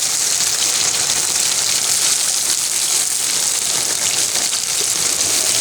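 Sausage and onions sizzling in olive oil in a pan on a small camp burner: a steady, even hiss.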